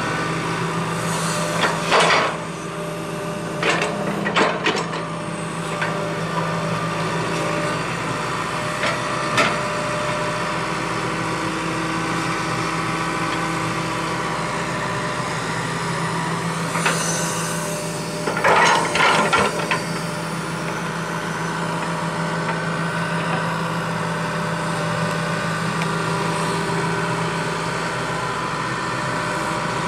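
2004 John Deere 160C LC excavator's diesel engine running steadily while the boom and bucket are worked. Several brief louder bursts of noise break through: one about two seconds in, a couple around four seconds, and a cluster about two-thirds of the way through.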